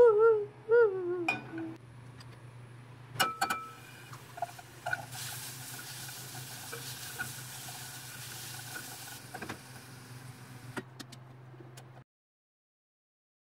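Sliced mushrooms, garlic and green chillies stir-frying in a pan: sizzling, with chopsticks knocking and scraping against the pan over a steady low hum. A short wavering squeak at the start is the loudest sound, and everything cuts off suddenly near the end.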